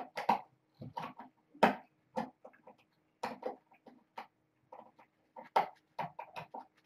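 Cats mewing in a run of short, irregular calls, some sharp and close.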